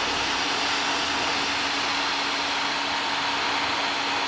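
Electric heat gun blowing steadily: an even rush of hot air over a steady motor hum, heating heat shrink tubing.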